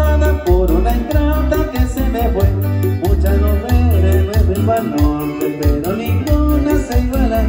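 Live Latin American dance music played by a band through a PA system: a singer over guitar and a heavy bass line.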